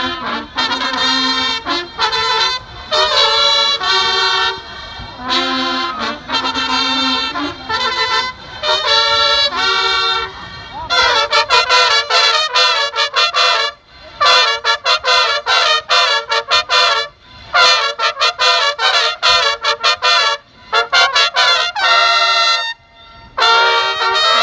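Marching band trumpets playing loud and close: phrases of short, clipped notes broken by brief pauses, the notes coming quicker from about halfway through.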